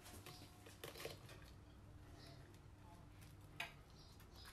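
Faint sounds of a knife cutting into the crisp breadcrumb crust of a fried chicken Kiev on a plate: a few soft crunches and clicks, the sharpest about three and a half seconds in, over a low steady hum.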